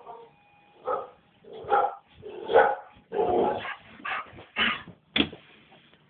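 A dog barking repeatedly, about seven short barks in a few seconds with brief pauses between them.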